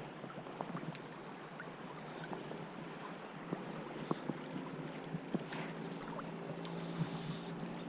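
River water moving close to the microphone, a steady rush dotted with small irregular splashes and clicks.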